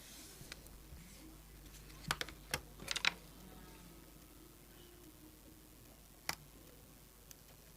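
Light plastic clicks and taps from handling the opened keypad phone's parts: a quick cluster about two to three seconds in and a single click near six seconds.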